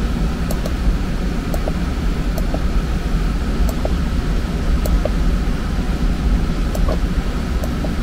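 Trane TAM9 air handler's variable-speed blower running steadily, a loud, even rush of air that is heaviest in the low end, moving about 1,500 CFM against high static pressure. Several small clicks of its control-panel keypad buttons being pressed sit on top of it.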